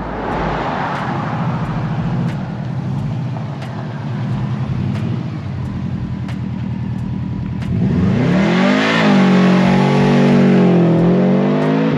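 Cars pulling away down a street. A passing car's engine and tyre noise swells and fades over the first few seconds. Then, about eight seconds in, a nearby car engine revs up, rising in pitch and holding high, with a brief dip near the end.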